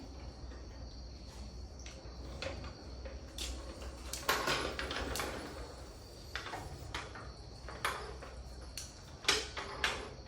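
Irregular knocks, clatters and scrapes of objects being handled, over a steady low hum. The loudest come about four seconds in and again near the end.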